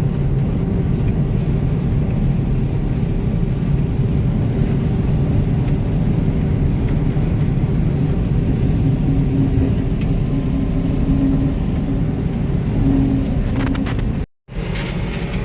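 Farm tractor engine running steadily, with a low, even hum and no change in revs. The sound cuts out completely for a moment about a second before the end.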